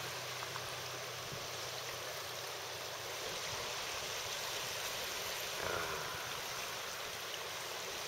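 Low, steady background hiss of outdoor ambience at the water's edge, with a brief faint sound about six seconds in.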